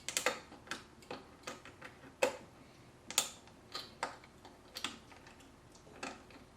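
Light, irregular clicking, about two or three clicks a second, from a screwdriver turning the spring-loaded mounting screws of a Gammaxx 400 CPU air cooler down onto the board.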